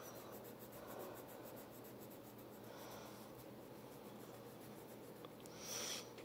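Faint scratching of a tan wax crayon rubbing back and forth on paper while colouring in an area of a drawing.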